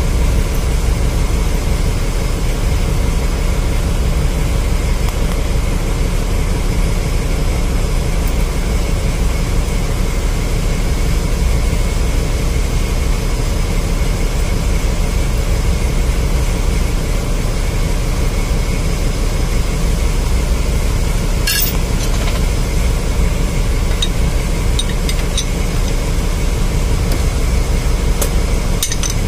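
Steady loud drone of running engine-room machinery. There is a sharp metallic clink about two-thirds through and a few more near the end as a ring spanner goes onto the bolts of an electric motor's end cover.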